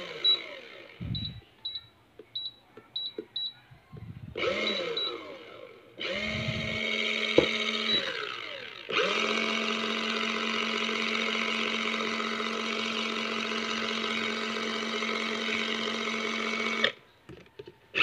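Small motor of a mini foldable washing machine turning the impeller in its empty tub. Several short high beeps in the first few seconds and a few brief spurts of the motor spinning up and down, then it runs steadily with a hum from about nine seconds in until it stops shortly before the end, followed by a few light clicks.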